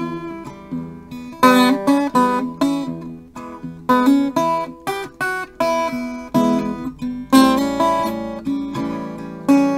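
Small-bodied acoustic guitar played fingerstyle without singing: low bass notes under higher plucked treble notes, in a steady unmetered rhythm.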